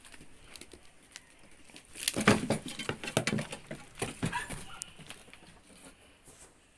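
Goats moving about: scattered knocks, patter and rustling, busiest from about two seconds in until about four and a half seconds in.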